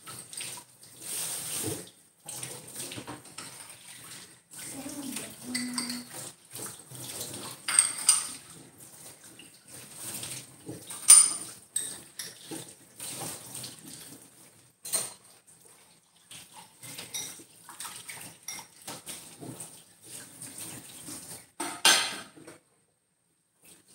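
Dishes and metal utensils clinking and clattering with some splashing water, as in washing up. Several sharp ringing clinks stand out, the loudest about eleven seconds in.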